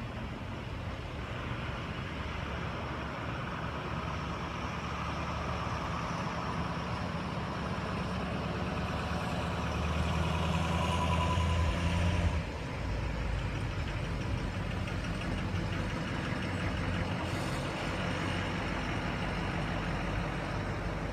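Motor vehicle engine running with a steady low rumble, growing slowly louder until about twelve seconds in, then dropping off sharply and carrying on more quietly.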